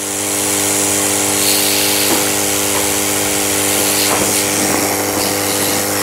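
Hot air gun blowing steadily, a rush of air over an electric hum, softening the plastic of an e-rickshaw charging socket so its pins can be pulled out. It swells in the first moment, then holds steady, with a few light ticks.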